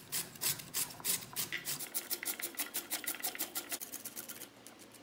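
Raw potato being grated on a hand grater with a metal blade: quick rasping strokes, about four to five a second, that stop shortly before the end.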